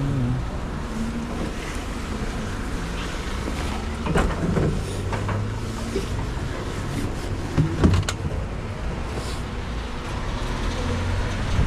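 Steady low outdoor rumble with a few knocks from plastic kerosene cans being handled: one about four seconds in and a pair near eight seconds.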